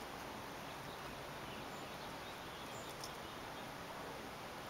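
Steady outdoor background noise with a few faint, short, high bird chirps and an occasional faint click.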